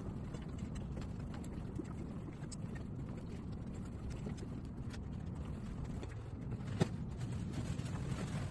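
A steam iron sliding and knocking lightly on an ironing board as clothes are handled, with one sharper click about seven seconds in, over a steady low background rumble.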